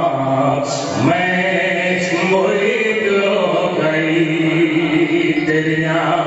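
Male devotional chanting into a microphone: a slow melodic recitation with long held notes that glide from pitch to pitch.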